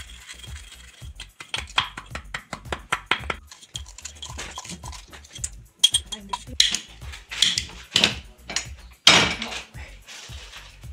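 Dishes and cutlery clinking and clattering irregularly as food is handled, with a louder rush of noise about nine seconds in and music playing underneath.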